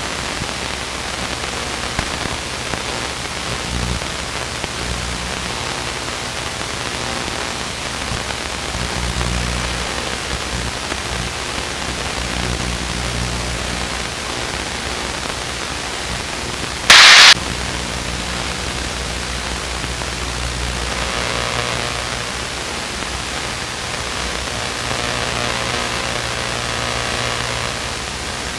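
Luscombe light aircraft cabin noise: the steady low drone of the engine under an even hiss. About 17 seconds in there is one short, very loud burst of static.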